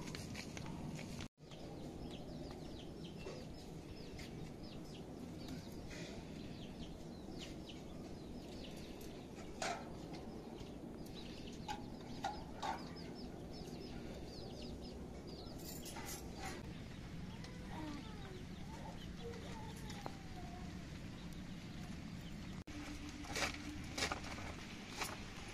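Chickens clucking over steady background noise, with scattered short clicks. Near the end come a few sharp knocks as a cabbage is cut on a woven bamboo tray.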